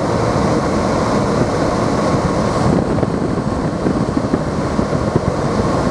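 Steady road noise heard inside a moving car's cabin: tyres rolling over a snowy road and the engine running, a dense low rumble.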